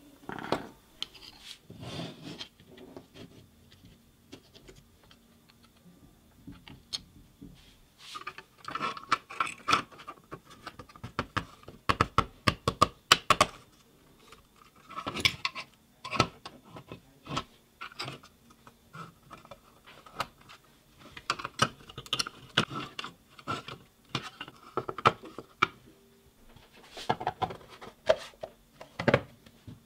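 Handling noise of a hard plastic Black & Decker battery charger case and its loose circuit board and wiring being fitted inside: scattered clicks, taps and rubbing of plastic, with a cluster of louder clicks near the end as the case is handled shut.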